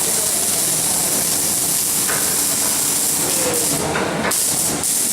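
Electric welding arc burning with a steady, loud hiss. The hiss thins briefly a little before four seconds in.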